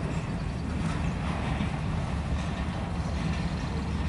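CSX manifest freight train rolling past, its empty centerbeam flatcars giving a steady rumble of steel wheels on the rails.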